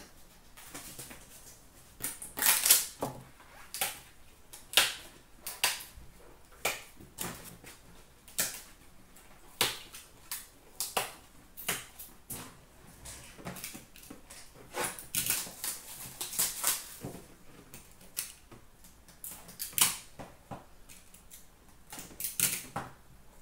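Hockey card packs, foil wrappers and cardboard boxes being handled: irregular crinkling, rustling and sharp clicks, with a few denser stretches of crinkling.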